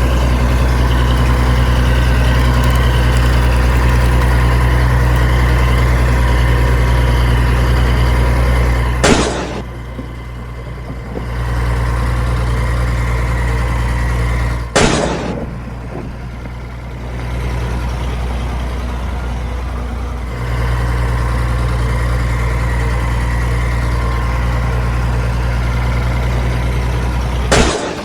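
Heavy engine idling steadily with a deep, even hum. It cuts off abruptly with a click three times: about 9 seconds in, about 15 seconds in and near the end. After the first two cuts it is quieter for a few seconds.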